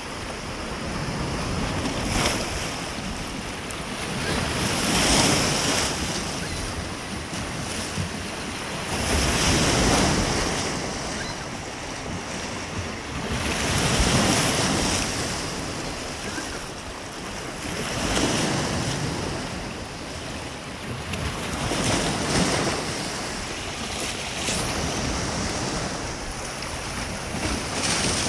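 Waves washing in against a rocky shore, the rush of water swelling and falling back about every four seconds, with wind buffeting the microphone.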